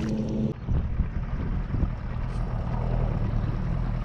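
Wind buffeting the microphone on open water, a steady low rumble. A steady motor hum cuts off about half a second in.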